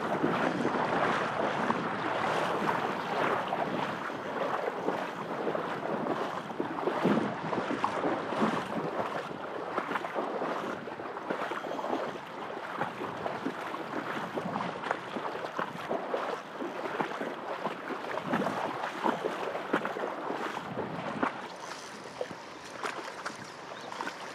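River current rushing and splashing over a shallow stony bed close by, a steady wash broken by many small irregular splashes and gurgles.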